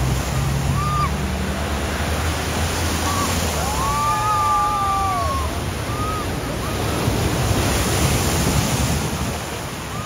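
Floodwater rushing across a ford while vehicles drive through it, a black Land Rover Defender's engine humming low under the water noise in the first half, then a white SUV pushing a splashing bow wave. A few short high calls rise and fall over it, the longest about four seconds in.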